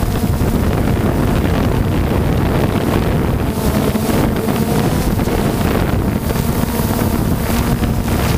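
Multirotor drone's motors and propellers humming steadily in flight, heard from the on-board camera, with wind rushing over the microphone.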